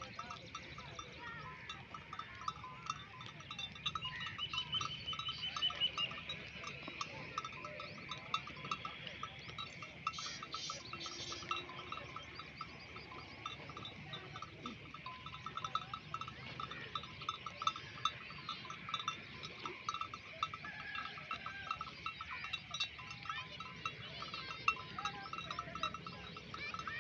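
Many small bells on grazing dumba sheep clinking and jingling continuously and irregularly as the flock moves and feeds.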